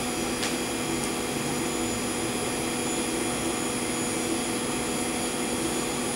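Steady drone of running workshop machinery with a low hum, and a faint click about half a second in.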